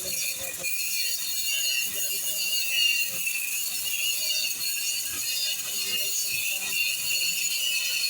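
Electric arc welding: the arc giving a steady crackling hiss.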